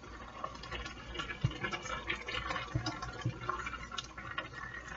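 Pot of spaghetti sauce simmering on the stove, bubbling and crackling irregularly, with a few soft thumps.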